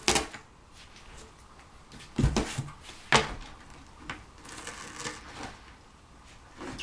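Bengal cats batting, clawing and biting at tape stuck to a cardboard box. Their paws knock against the cardboard: a sharp knock at the start, a dull thump a little after two seconds and another sharp knock about three seconds in. Light scratching and rustling of cardboard and tape comes in between.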